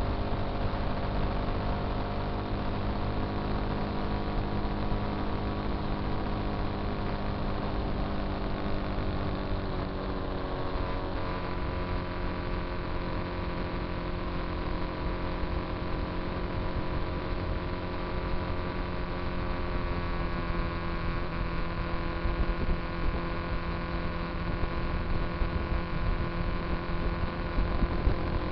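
Motorcycle engine running steadily at highway cruising speed, a steady hum over wind and road noise. About ten seconds in its pitch dips and settles a little lower, then holds steady.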